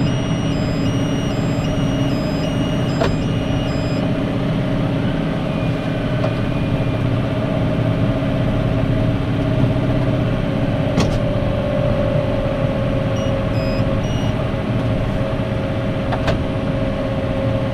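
Tractor engine running steadily under load while pulling a round baler through a barley straw swath, heard from inside the cab, with a steady hum and a few sharp clicks about three, eleven and sixteen seconds in.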